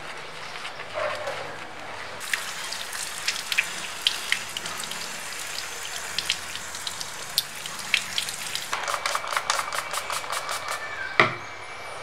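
Water from a garden hose splashing over a pair of disc brake pads held in the palm and onto wet concrete: the pads are being rinsed of soap and brake-contaminating oil. Near the end a rapid, even ticking with a steady high whine joins in, and there is a single sharp knock.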